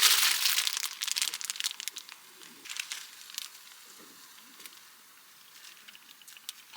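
Crinkling and crumpling, loudest and densest in the first two seconds, thinning to scattered crackles and clicks that die away about halfway through.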